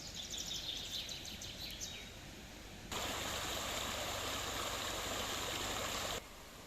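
A steady rushing hiss that cuts in abruptly about three seconds in and stops just as suddenly about three seconds later. Before it there is faint rapid high ticking.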